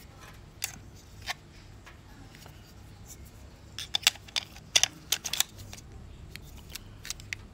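Metal clicks and scrapes of a Miranda Automex III's detachable prism viewfinder being fitted back into the camera body and latched: a couple of isolated clicks, then a quick cluster of sharp clicks about four to five seconds in, and two light clicks near the end.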